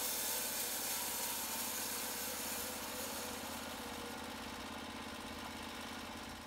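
The small engine of a portable band sawmill running steadily with an even firing rhythm. It fades out gradually near the end.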